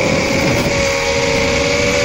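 Rekon 3 three-inch FPV quadcopter's brushless motors and propellers whining steadily in cruise, as several close high tones that drift slightly, over rushing wind noise, recorded onboard.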